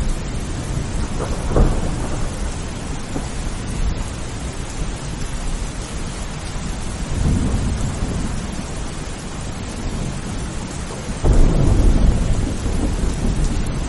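Steady heavy rain with thunder rumbling low several times: a swell about a second and a half in, another around seven seconds, and a louder, longer rumble starting about eleven seconds in.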